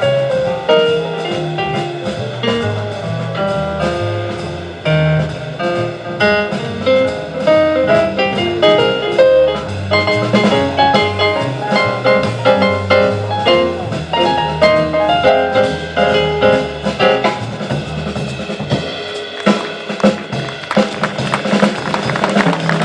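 Live jazz combo playing: a keyboard line of quick notes over double bass and drum kit. From about 18 seconds in the keyboard falls back and the drums and cymbals carry on with the bass.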